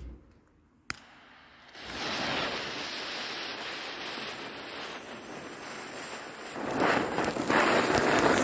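Cone-shaped ground fountain firework (a Lesli Vegas Volcano) catching about two seconds in after a short click, then spraying sparks with a steady hiss that grows louder near the end.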